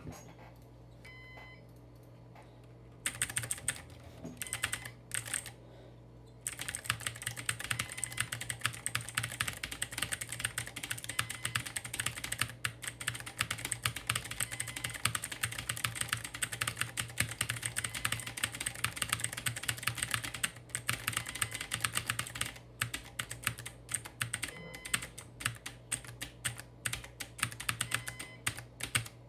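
Clacky computer keyboard being typed on fast. A few keystrokes about three seconds in, a short pause, then a dense, continuous rattle of clicks with brief breaks.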